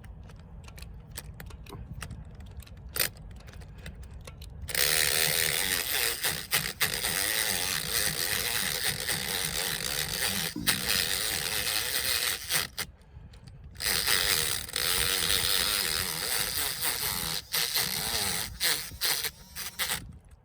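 Power drill boring into a trailer kingpin lock, running in two long stretches with a short pause between, its pitch wavering under load. Scattered light clicks come before the drill starts, about five seconds in.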